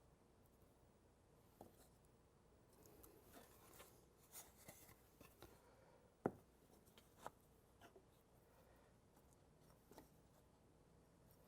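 Near silence with faint, scattered clicks and taps of small parts being handled during assembly, and one sharper click about six seconds in.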